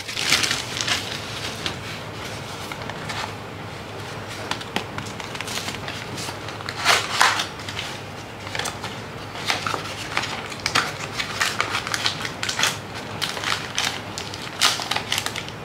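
Parcel packaging being torn open and crinkled by hand: irregular crackling and rustling, loudest about seven seconds in.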